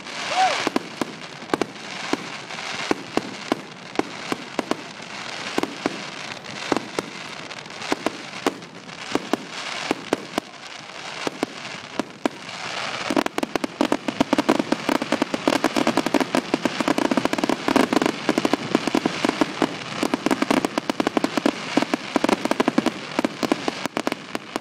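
Aerial fireworks bursting: a steady run of sharp bangs, becoming a rapid, louder barrage of near-continuous bangs about halfway through.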